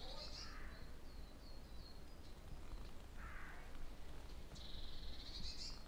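Songbird singing outdoors: a high phrase of about a second, heard near the start and again about five seconds in, with short chirps between and a lower call a little after three seconds. A faint low rumble of wind lies underneath.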